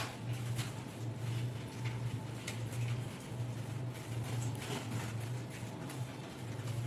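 Soft grass broom swishing across a hard floor in short sweeping strokes, over a steady low hum.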